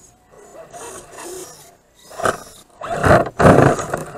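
Radio-controlled rock crawler's electric motor and drivetrain whirring in uneven bursts as it strains over a log. The bursts are loudest and longest in the second half.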